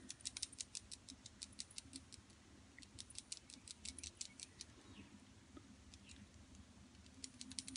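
Faint, rapid clinking of metal bracelets, about eight light clicks a second in runs with a lull in the middle, shaken as her hand pats powder on with a makeup sponge.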